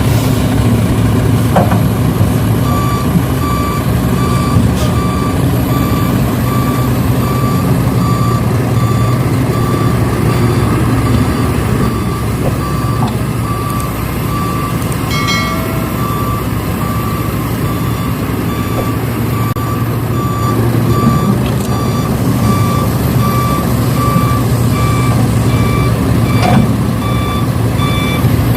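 Truck reversing alarm beeping at an even pace over a steady low engine hum.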